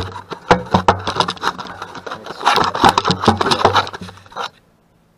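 Rapid clatter, knocks and scraping of hand tools and handling close to the microphone. It stops about four and a half seconds in.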